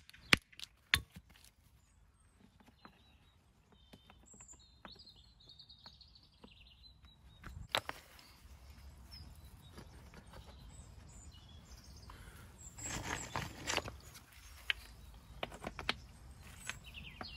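Two sharp knocks of a hand tool on stone, then scattered clicks of stones being handled, with a bird chirping faintly in the middle. About thirteen seconds in, stones scrape and knock together as one is set into a dry stone wall.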